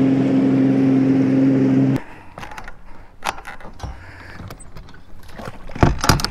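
Bass boat's outboard motor running steadily under way, cutting off suddenly about two seconds in. After that come scattered clicks and knocks of fishing gear being handled on the boat's deck, with a louder thump near the end.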